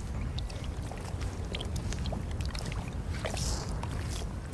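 Wind rumbling on the microphone at an open salt marsh, with scattered light ticks and rustles and a brief hiss about three and a half seconds in.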